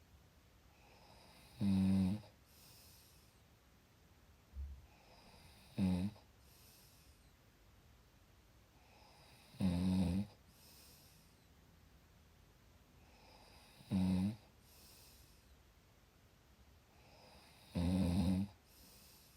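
A person snoring in a slow, regular rhythm: five loud snores, about one every four seconds, each followed by a softer, airy out-breath. A short low thump sounds once, about four and a half seconds in.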